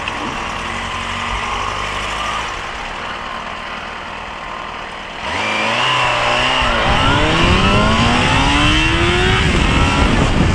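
The 2006 Yamaha FZ6S's 600 cc inline-four runs steadily at low speed, then about five seconds in the throttle is opened hard from a standstill in first gear. The engine note climbs steeply, dips briefly as it shifts up, and climbs again, with wind rush building.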